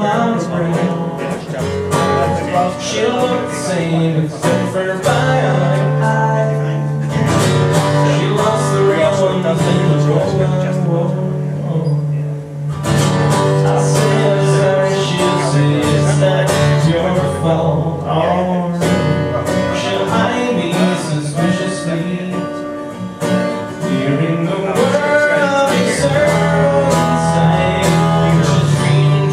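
Live acoustic guitar being strummed, with a voice singing along: part of a song played through the PA during a band's sound check.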